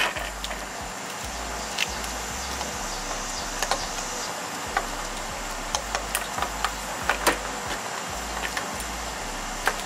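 Scattered small, sharp clicks of hand-held wire strippers and wiring being handled as insulation is stripped back from a wire, spaced irregularly over a steady background hiss.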